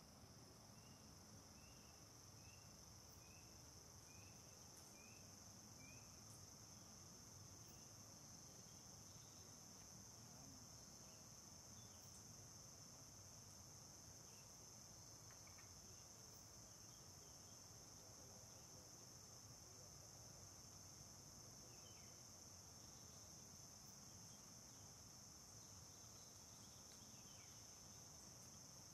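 Faint, steady high-pitched insect chorus, such as crickets or cicadas, from the surrounding forest. In the first six seconds a short run of quick chirps repeats about twice a second.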